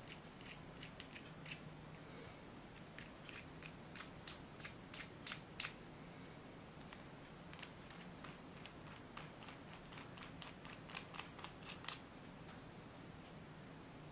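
Faint, irregular light clicks and ticks in runs, with pauses between them.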